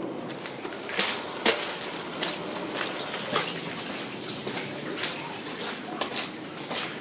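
Water dripping and splashing in a flooded underpass beneath a low railway bridge, with irregular sharp drips or splashes over a steady wash of background noise, echoing under the bridge.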